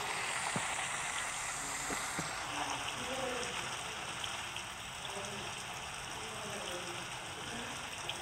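Steady rain falling, an even hiss with a few faint drop ticks in the first couple of seconds.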